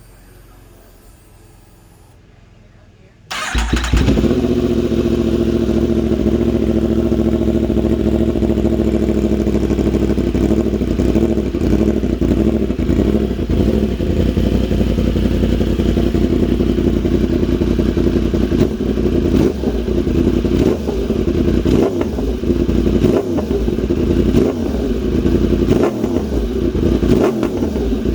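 2015 Yamaha YZF-R1's crossplane inline-four starting about three seconds in, then idling loudly through a KO Lightning aftermarket full exhaust.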